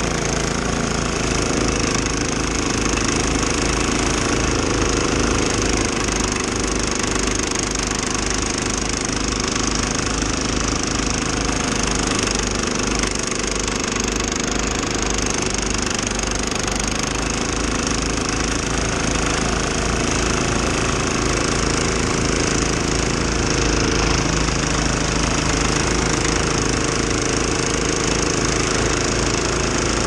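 Husqvarna ST227P two-stage snowblower running steadily under load, its engine driving the auger and impeller as it chews through and throws snow.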